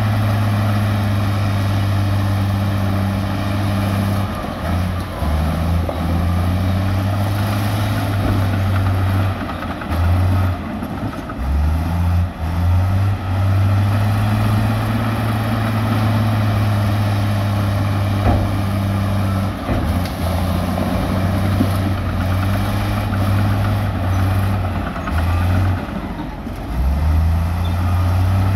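Heavy diesel engine of earthmoving equipment running close by with a strong low drone. Its pitch dips and shifts several times, around 5 to 13 seconds in and again from about 19 to 27 seconds, then steadies.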